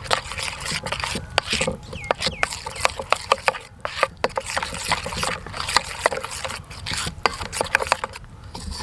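A metal spoon stirring a thick gram-flour and spice batter in a stainless-steel bowl: quick, irregular clinks of the spoon against the bowl, over a steady scraping.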